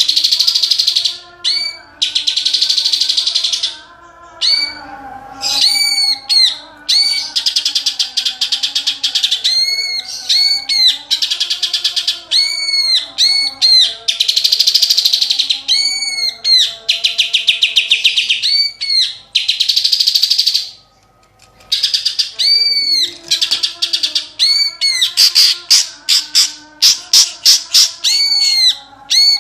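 Green leafbird (cucak ijo) singing loudly and continuously: repeated arched whistled notes broken by fast chattering trills, a song carrying mimicked kapas tembak and tengkek calls. There is a brief pause about two-thirds of the way through.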